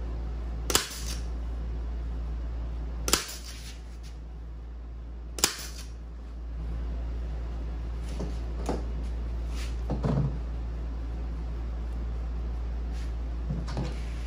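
Upholstery staple gun firing three staples into a canvas seat cover over its frame, sharp shots a little over two seconds apart. Fainter knocks of handling follow, over a steady low hum.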